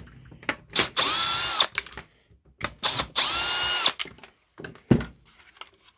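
Milwaukee 12-volt brushless drill driver with a T25 Torx bit, run in two short bursts of under a second each to back screws out of a battery charger's case. Its motor whine rises as it spins up and drops as it stops. Clicks and knocks of handling come between and after the bursts.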